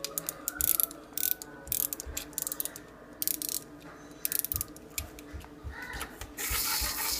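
Small wind-up toy tractor being wound: the key's ratchet clicks in quick, uneven bursts. Near the end the spring is let go and the clockwork motor whirs steadily.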